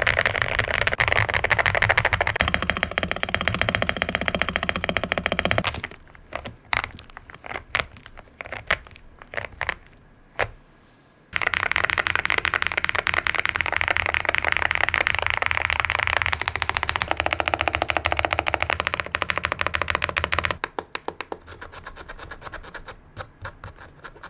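Fast typing on an Akko 5098B gasket-mount mechanical keyboard with Akko V3 Piano Pro switches and double-shot PBT keycaps: a dense run of keystrokes. From about 6 s to 11 s it slows to separate single key presses, then fast typing resumes, thinning out to quieter, sparser presses near the end.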